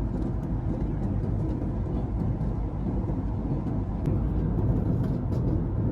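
Steady low rumble of cabin noise inside a Boeing 737 MAX 8 airliner, from its engines and airflow, with a few faint light clicks.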